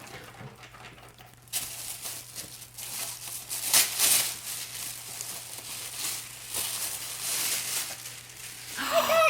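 Gift wrapping being torn and crinkled as a present is unwrapped, in irregular rustling bursts.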